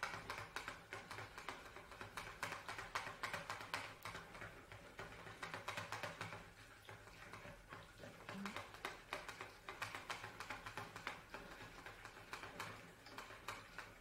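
Small whisk stirring a thick, creamy emulsion in a plastic measuring jug, giving faint, quick, irregular clicks and taps against the jug as linseed oil is worked in.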